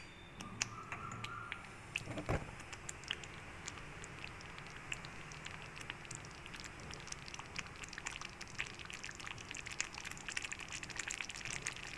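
Thick shahi paneer gravy simmering on a very low gas flame in a steel pan: a faint, fast popping of bubbles that grows busier near the end. One knock sounds about two seconds in.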